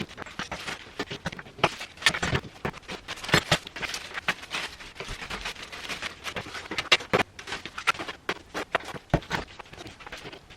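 Irregular knocks, clicks and clatter of hard objects being handled and set down, several a second with a few louder strikes.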